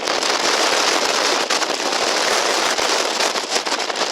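Very strong wind blasting across a mountain ridge and battering the microphone: a loud, steady rush full of rapid crackles.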